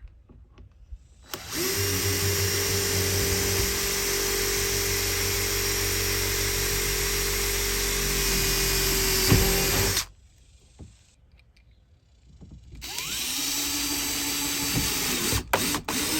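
Power drill running in two long runs, boring and driving self-tapping screws through a pine furring strip into a van's sheet-metal body. The first run lasts about eight seconds and cuts off suddenly. After a short pause, a second run starts at a lower pitch that climbs slightly.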